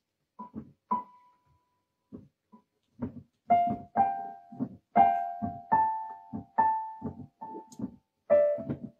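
Electronic keyboard with a piano sound, its keys pressed by a cat's paws: irregular single notes and small clusters with no tune, a few scattered ones at first, then coming more often from about three seconds in, each with a soft thump.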